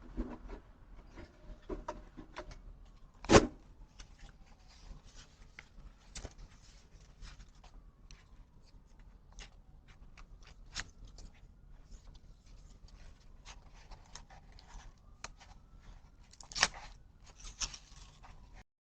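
Scattered clicks and knocks, with a loud thump about three seconds in and another near the end.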